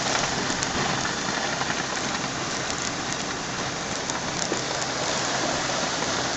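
Heavy hurricane rain pouring down as a dense, steady hiss, with scattered drops ticking close by.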